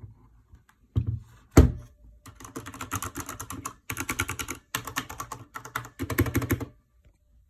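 Corsair K70 RGB TKL mechanical keyboard being typed on fast in four bursts of rapid key clicks with short pauses between them, after two heavy thumps about a second apart.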